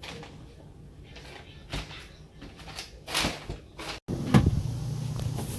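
A few scattered knocks and clicks of something being handled, then an abrupt cut to a steady low hum with more clicks.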